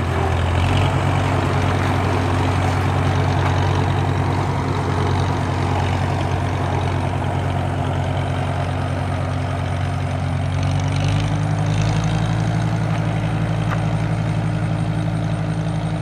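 1941 Farmall H tractor's four-cylinder engine running steadily as the tractor drives slowly away. About two-thirds of the way through, the engine note steps up slightly and holds there as it picks up a little speed.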